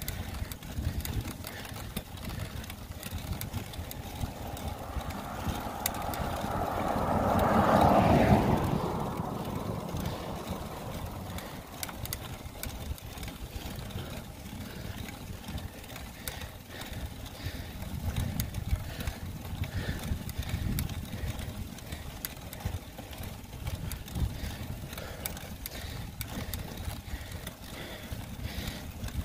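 Wind buffeting the microphone of a moving rider, a steady low rumble. About five seconds in, a passing vehicle's road noise swells, peaks around eight seconds and fades away.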